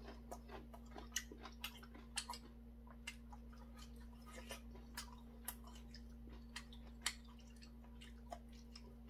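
A person chewing kimchi, faint and close, with many short irregular clicks as metal chopsticks pick at a stainless steel bowl, over a steady low hum.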